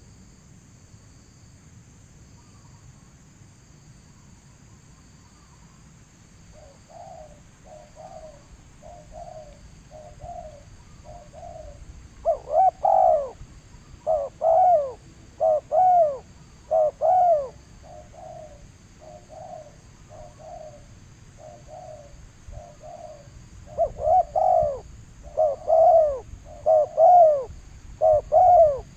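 A caged bird calling in a long series of short, falling notes, a little over one a second, soft at first and then much louder in two spells, about halfway through and again near the end, over a steady high insect buzz.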